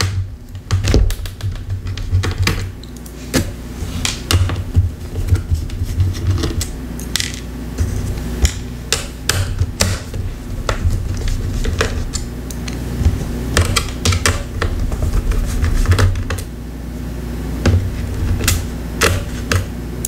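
Small screwdriver taking out the screws that hold down the battery and speakers in an HP Chromebook 11 G6 laptop: many irregular clicks and taps of metal on screws and plastic chassis, over a steady low hum.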